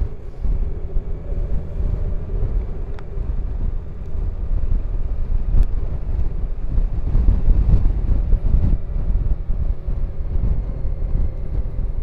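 Wind buffeting the microphone on a moving Honda Gold Wing motorcycle: a heavy low rumble that swells and eases, with a faint steady engine hum beneath it.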